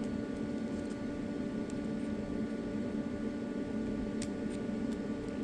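Steady low hum with an even hiss, with a faint tick about four seconds in.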